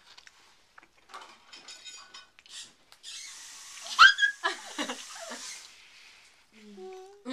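A toddler's sudden high-pitched squeal about four seconds in, over a breathy, hissing exhale, with a few more short vocal sounds after it. Faint small clicks come before it.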